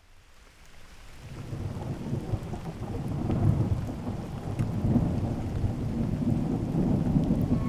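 Rain falling with a low rolling thunder rumble, fading in from silence over the first couple of seconds and then holding steady.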